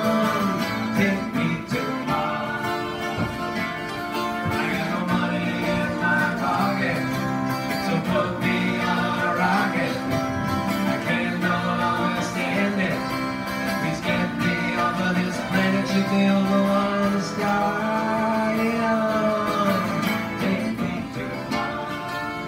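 Two acoustic guitars playing together live: strummed chords with a melody line moving over them.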